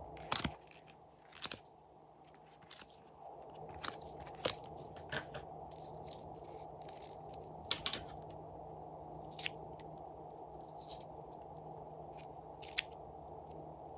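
Slime being squeezed and worked by hand, giving off sharp clicks and pops at irregular moments, about ten in all, over a faint steady hum.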